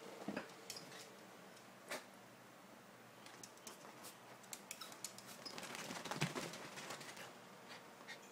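Faint scattered clicks, taps and rustling of two small Maltese dogs moving about a fabric dog bed, busiest about six seconds in, over a faint steady hum.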